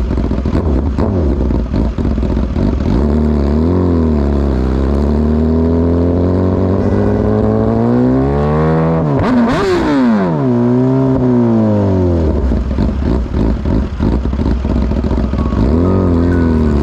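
BMW S1000RR inline-four sport-bike engine idling, then pulling away through the gears. The engine note climbs steadily with a brief dip at a gear change, peaks around the middle and falls away as the throttle closes, then picks up again near the end.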